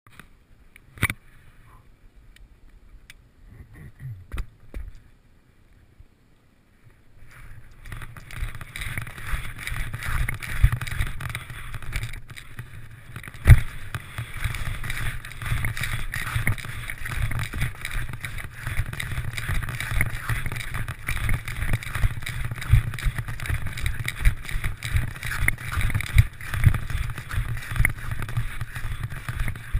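Skis scraping and chattering over mogul snow, with wind rush, heard through a GoPro in its housing. A few knocks come first while the skier stands still. About seven to eight seconds in the run starts, and a rough, bumpy rushing sound takes over, with many irregular thumps as the skis hit the moguls. One hard thump comes about thirteen and a half seconds in.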